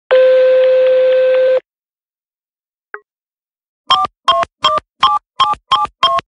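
Telephone sounds: a steady beep of about a second and a half, a single click, then seven touch-tone (DTMF) keypad tones at about three a second, as a seven-digit number is dialled.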